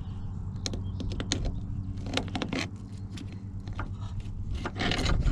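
Metal hardware clicking, clinking and scraping as a bolt is worked up through an angle-iron bracket and spacer, over a steady low hum.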